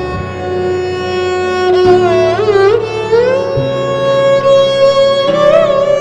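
Instrumental background music: a held melody line that slides and wavers between notes over low sustained notes.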